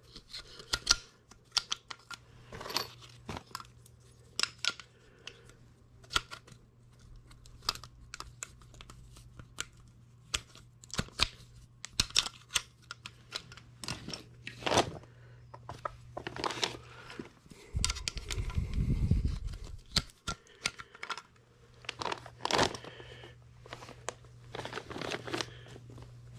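Irregular metal clicks and clanks as a new furnace blower motor and its mounting bracket are handled and fitted together by hand, with plastic sheeting crinkling. A low rumble lasts about two seconds partway through.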